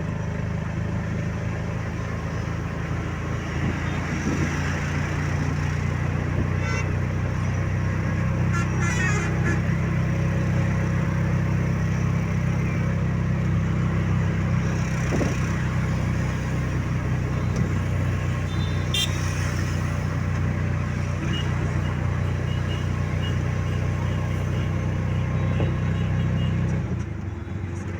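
Steady engine drone and road noise of a road vehicle on the move. A few brief sharp sounds stand out above it, and the drone drops a little near the end.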